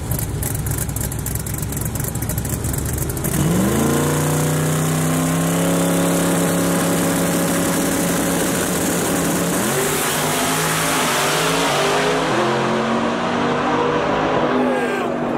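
Twin-turbo Mustang drag car held at the starting line with a rapid crackle, then launching about three seconds in. Its engine note climbs hard and drops twice at gear changes as it runs down the track.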